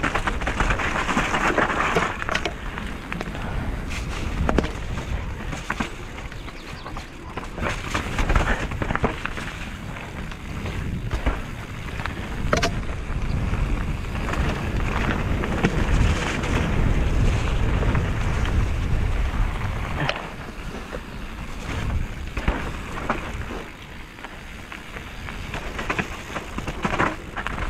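Mountain bike riding down a dirt trail: steady tyre noise over the ground with frequent sharp clacks and rattles from the bike over rough terrain, and wind rumbling on the microphone. The noise swells and eases with speed, loudest in the middle stretch.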